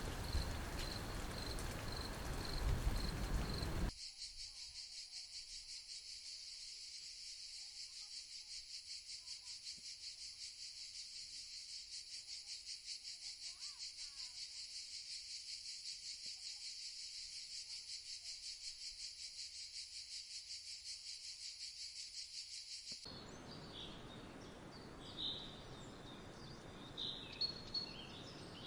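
Insects trilling, a steady high-pitched pulsing chorus, cutting in suddenly about four seconds in after a stretch of noisy outdoor ambience with a faint repeating chirp. Near the end the trill stops and a few short bird chirps follow.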